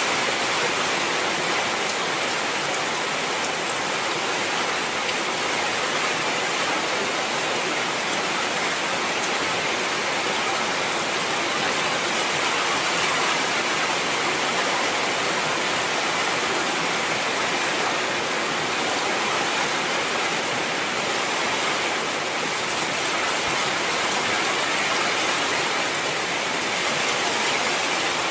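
Heavy rain falling steadily: a dense, even hiss of downpour with no breaks.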